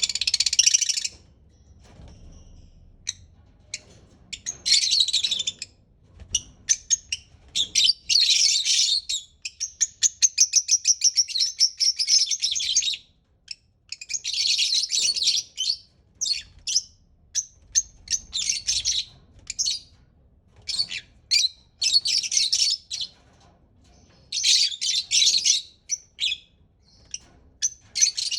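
A pet parrot chirping and chattering in bursts of high-pitched notes with short pauses between them, and a long, rapid trill about ten seconds in.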